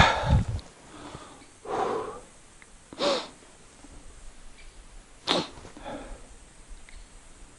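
A few short, sharp nasal breaths from a person, one or two seconds apart, like sniffs or a stifled sneeze, after a dull thud at the start.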